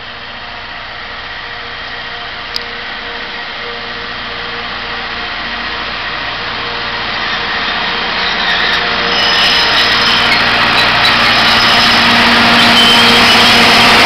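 Alishan Forest Railway diesel locomotive DL 48 running as it rolls slowly in, its engine hum growing steadily louder as it approaches and draws alongside. A single sharp click comes about two and a half seconds in.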